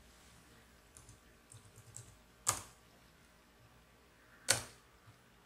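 Laptop keyboard keys tapped lightly a few times, then struck hard twice, about two seconds apart, each a sharp loud click.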